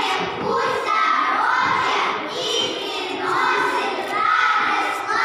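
A group of young children singing together in unison, holding high notes in a large hall.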